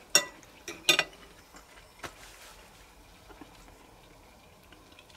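Knife and fork clinking against a plate while cutting steak: a few sharp clinks in the first second and one more about two seconds in, then only faint scraping.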